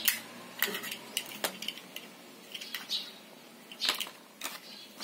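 Light clicks and taps of the plastic plugs and cable of an HDMI streaming dongle being handled and fitted together, about seven irregular knocks.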